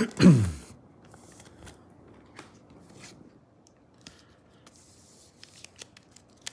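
A short falling vocal sound at the start, then faint rustling and small clicks of glossy trading cards being handled and moved.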